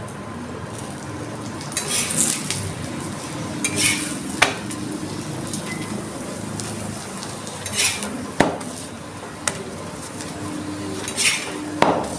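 Metal spatula scraping over a paratha on a hot tawa, spreading oil: four short scraping strokes, each soon followed by a sharp metal tap against the pan, over a faint sizzle of frying oil.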